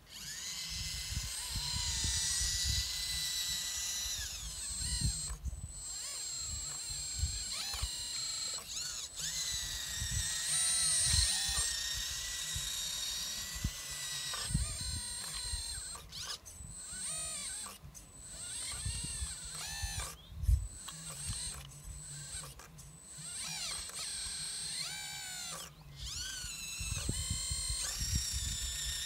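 Electric hydraulic pump of a radio-controlled hydraulic excavator whining, its pitch sagging and recovering again and again as the boom and bucket work under load. The whine cuts out briefly several times.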